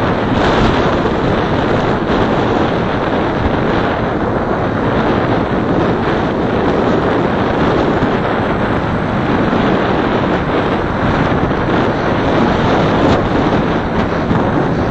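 Steady road and wind noise of a car driving through town streets: an even rushing hiss with no engine note standing out and no breaks.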